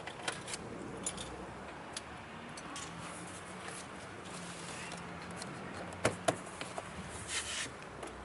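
Scattered small plastic clicks and handling rattles from a car's door trim and window switch being fitted and tested, with two sharp clicks about six seconds in and a brief rustle just after.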